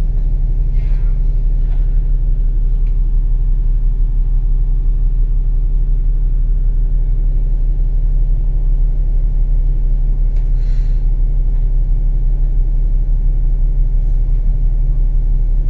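Steady low rumble of a double-decker bus's engine, heard from inside the upper deck in slow traffic.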